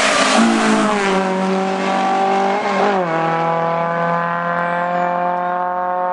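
A rally car passes close with a rush of noise, then accelerates away at full throttle. Its engine note drops in pitch about a second in and again about three seconds in, then holds steady.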